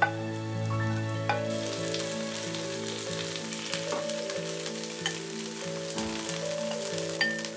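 Food sizzling as it fries on a hot pan, a steady hiss with small crackles, over soft background music with a slow melody.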